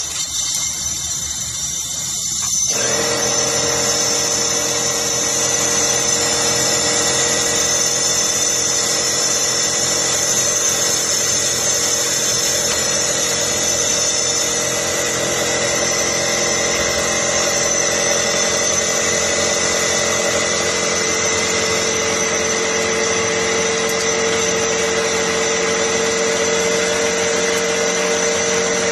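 A machine running steadily, a constant mechanical drone with several fixed tones. It comes on abruptly about two and a half seconds in and holds unchanged.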